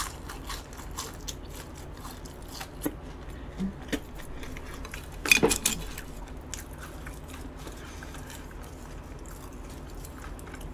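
Close-up eating sounds: chewing with small scattered mouth clicks, and a louder bite about five seconds in.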